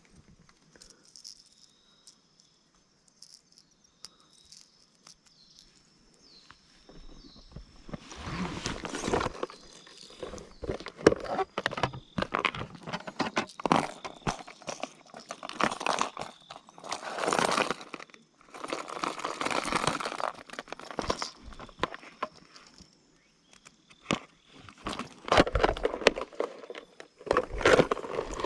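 A person walking through grass and undergrowth beside a pond, in irregular stretches of steps starting about eight seconds in. Insects chirp steadily underneath.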